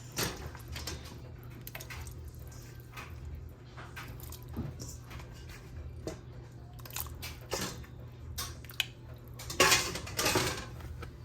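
Raw chicken feet being put into a cooking pot: scattered clicks, knocks and soft wet thuds of pot and food handling, over a steady low hum, with a louder clatter near the end.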